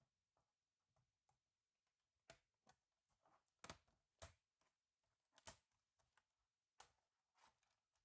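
Faint, scattered short clicks and taps, about seven of them, starting about two seconds in.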